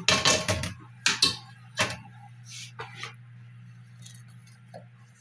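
Kitchen dishes and utensils clattering and clinking, several sharp knocks in the first three seconds and fewer after. A steady low hum runs underneath and cuts off suddenly near the end.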